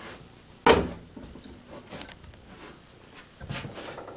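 Metal clutch cover set down on a workbench: one clunk under a second in, then a few lighter knocks and handling noises.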